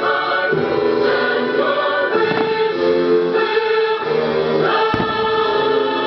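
Fireworks show soundtrack music: a choir singing long held chords over an orchestra, the chords changing every second or so. A few short bangs from fireworks bursting come about five seconds in.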